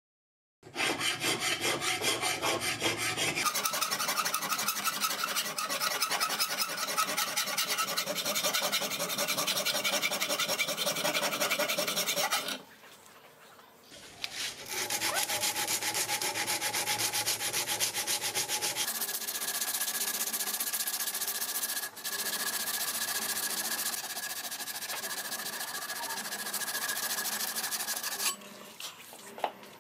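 Hand-sanding a steel karambit blade clamped in a vise, with abrasive paper wrapped around a stick, in rapid back-and-forth scraping strokes. The sanding pauses about 13 seconds in and then resumes. In the later part a thin steady whine rides over the strokes.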